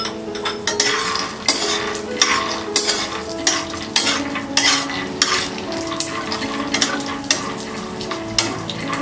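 A spatula stirring peanuts in a kadhai, with irregular scrapes and clicks of the spatula and nuts against the pan as they roast in a teaspoon of oil.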